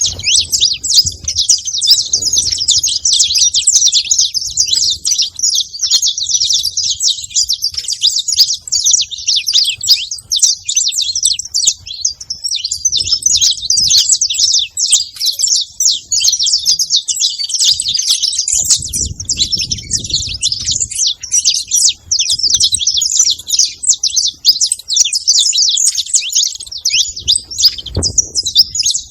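Saffron finches chirping and calling in a dense, unbroken stream of high, overlapping chirps.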